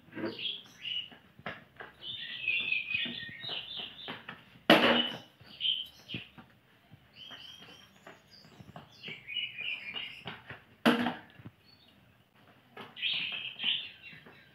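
Birds chirping on and off, with two sharp thuds about six seconds apart from a child's jumps on a tiled floor, reaching up to a hanging plastic bottle.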